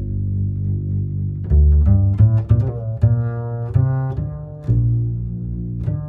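Background instrumental music: a run of distinct low string notes over a deep bass line.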